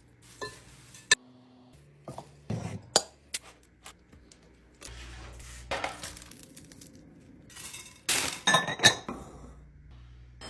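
Glass jars and containers clinking and knocking as they are set down and rearranged in a fridge: a string of sharp clinks, with longer sliding and shuffling sounds between them.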